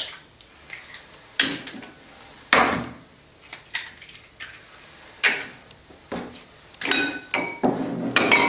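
Eggs being cracked and their shells knocking against a white ceramic bowl: a series of sharp taps and clinks, several of them about a second apart.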